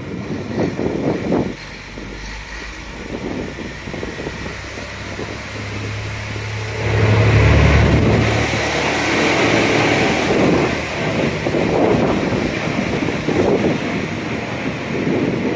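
JR Kyushu KiHa 220-200 diesel railcar pulling away under power. Its diesel engine's low drone builds and is loudest about seven to eight seconds in as the car passes close by. Wheel and rail noise follow, easing off as it moves away, with wind buffeting the microphone.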